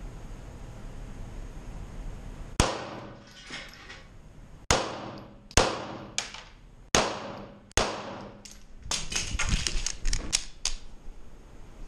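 A string of pistol shots from an STI Trojan, about a second apart at first and then faster near the end, each with a long echo off the concrete walls of the tunnel.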